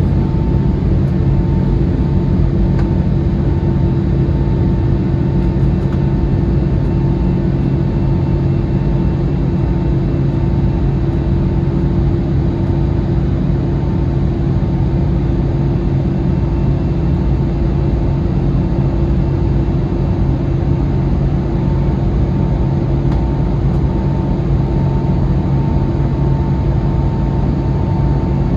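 Steady jet engine drone heard from inside an Airbus A320neo passenger cabin: an even rush of noise with a constant low hum and a fainter higher tone, unchanging throughout.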